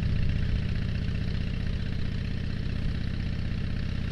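2007 Harley-Davidson Dyna Street Bob's Twin Cam 96 V-twin running steadily while riding, a low-pitched engine sound that eases slightly in loudness.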